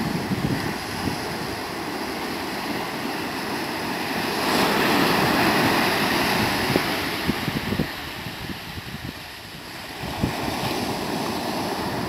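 Atlantic Ocean surf breaking and washing up the sand, with one wave rushing in about four seconds in and slowly fading. Gusty wind buffets the microphone with low rumbles.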